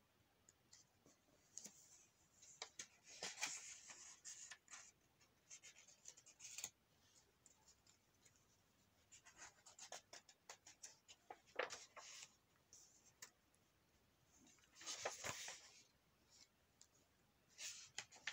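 Magazine paper rustling softly as it is handled and its pages are turned by hand, in short spells with quiet gaps between.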